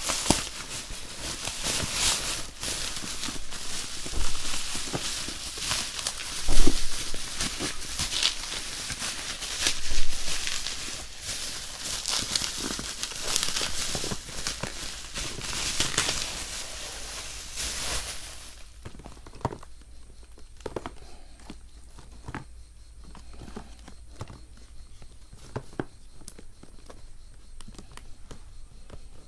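Packaging being opened and handled during an unboxing: crinkling, rustling and tearing with occasional knocks for about the first two-thirds, then quieter scattered clicks and taps as the contents are handled.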